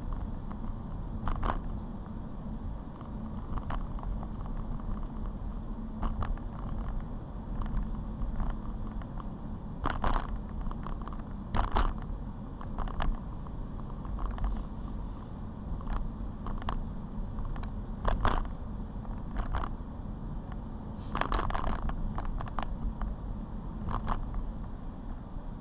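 Car driving: a steady low road and engine rumble heard from inside the cabin, with irregular sharp taps and clicks scattered through it.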